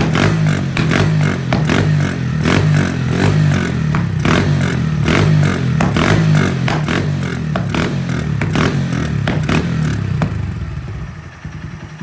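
Small single-cylinder motorcycle with a red aftermarket exhaust, revved hard in rapid, repeated throttle blips, about two to three a second, each with a sharp crack from the exhaust. A little before the end it drops back to a lower idle.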